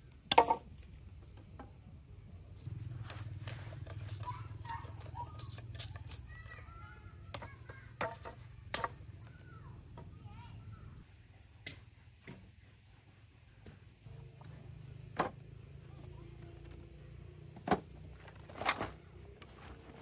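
Scattered sharp knocks or chops, the loudest about half a second in, over a low steady hum for much of the time.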